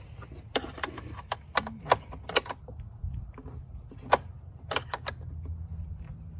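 Metal sockets and hand tools clinking as they are picked through while choosing a size. A string of irregular sharp clicks, loudest about two seconds and four seconds in.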